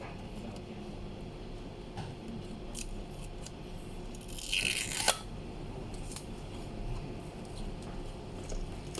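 Light clicks and handling of the car head unit's metal body case being taken off, with a short scrape about halfway through that ends in a sharp click, over a steady low hum.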